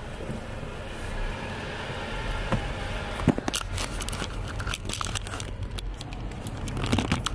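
Handling noise as the camera is moved about inside an idling car: scattered clicks, knocks and rustling over a low engine hum, with most of the knocks in the second half.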